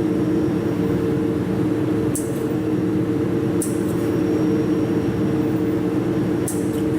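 Jewelry laser welding machine running with a steady hum, with three short sharp high-pitched ticks about two, three and a half, and six and a half seconds in.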